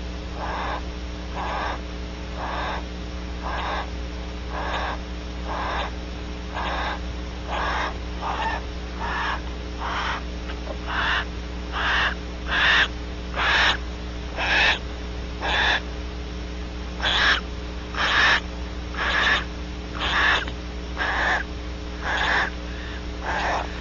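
Female nesting bird in a cavity breathing in short hissing breaths, about one a second, which grow louder about halfway through. The breathing sounds distressed during mating.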